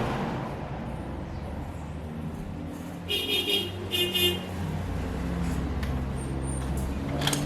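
A vehicle horn sounds twice in quick short toots, about three and four seconds in, over a steady low rumble like road traffic.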